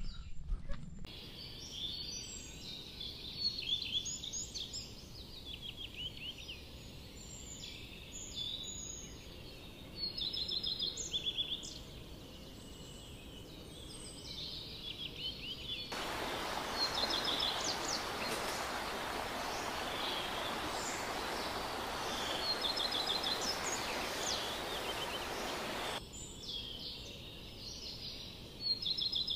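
Many short, high chirps and calls of forest birds, one after another. Past the middle a steady hiss comes in for about ten seconds and cuts off suddenly.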